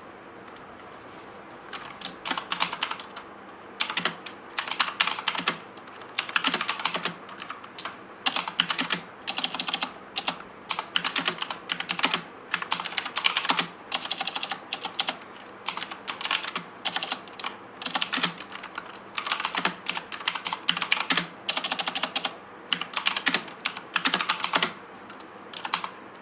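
Typing on an E-Blue EKM757 mechanical keyboard with blue switches: fast clicky keystrokes in bursts of a second or two with short pauses, starting about two seconds in.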